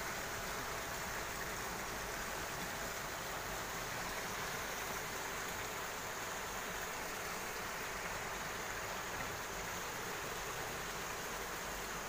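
Steady rushing of running water, an even hiss that does not change.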